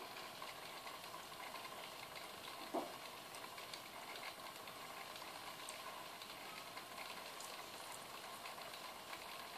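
Faint, steady fizzing and trickling of aquarium water and bubbles, with scattered tiny ticks. A single soft knock comes about three seconds in.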